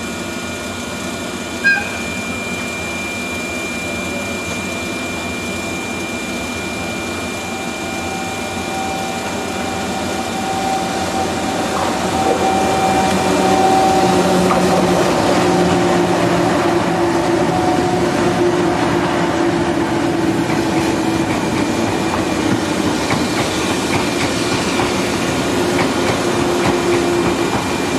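EF63 electric locomotives and a 189-series express train running through a station: a steady hum from the locomotives with wheel noise on the rails, growing louder about ten seconds in as the train comes close. One brief sharp click near the start.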